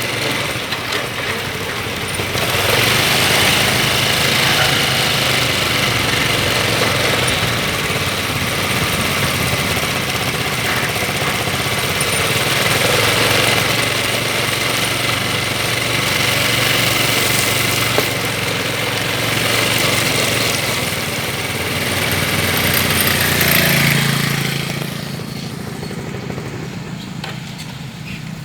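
Excavator diesel engine running steadily. It gets louder a couple of seconds in and dies down again near the end.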